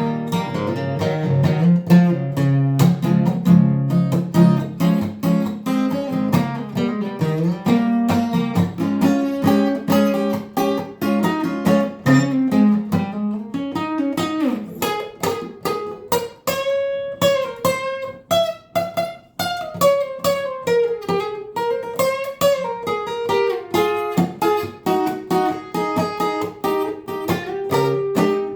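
Acoustic guitar played solo in an instrumental break: picked and strummed chords with a moving bass line for about the first half, then a higher single-note lead melody with runs.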